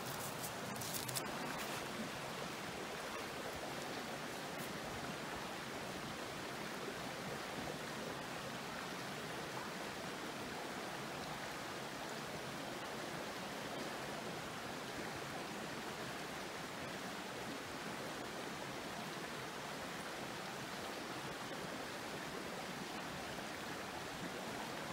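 Mountain stream running steadily, with a few light clicks about a second in.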